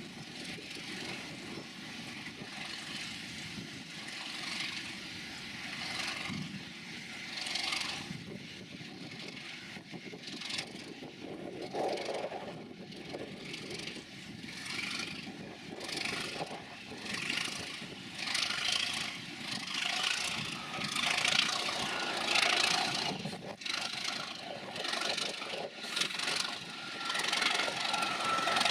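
Class 37 diesel-electric locomotive's English Electric V12 engine, growing steadily louder as it approaches, with a steady whine above the engine noise.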